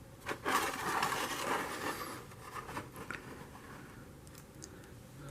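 Packaging being handled: a scratching, rustling scrape for about two seconds, followed by a few light clicks and taps.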